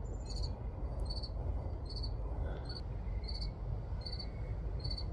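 A cricket chirping at an even pace, short high chirps about every two-thirds of a second, over a steady low rumble.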